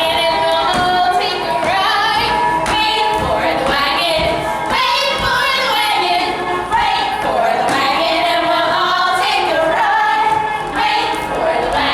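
Women's voices singing a stage-show song with instrumental accompaniment.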